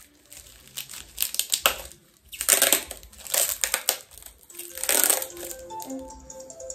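Parcel packaging being crinkled and torn open by hand in several irregular bursts of crackling. A faint tune comes in near the end.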